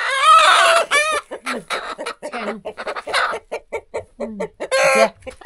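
A chicken squawking in alarm as it is grabbed and pulled out of its coop: a loud run of squawks in the first second, short clucks and cackles after, and another loud squawk near the end.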